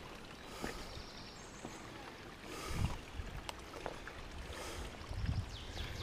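Footsteps of a hiker walking a stony forest path: soft crunches and swishes roughly every two seconds, with a few sharp clicks of stones and heavier footfalls about three and five seconds in.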